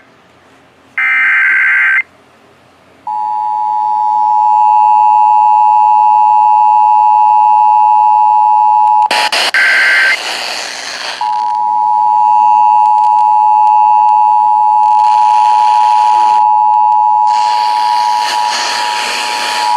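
Emergency Alert System two-tone attention signal: a steady pair of tones sounding for about six seconds, cut by a short buzzing burst of digital header data, then sounding again for about eight seconds with bursts of hiss over it. Another short buzzing data burst comes about a second in.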